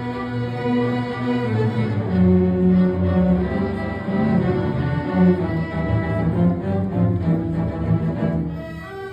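Background music led by bowed strings such as cello and violin, with long held notes, dipping briefly near the end.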